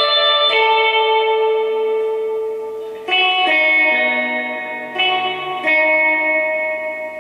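Electric guitar, a Fender Jaguar, played clean through a Bassman-style tube amp and a spring reverb unit: single notes and chords picked slowly, each ringing out and fading before the next, a new one struck every second or two.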